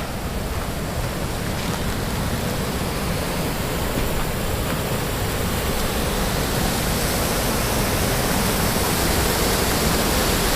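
River water rushing, a steady noise that grows gradually louder.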